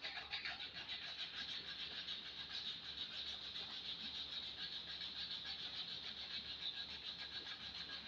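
Sandpaper rubbed by hand in quick, even back-and-forth strokes over a wooden axe handle, taking the paint off down to bare wood.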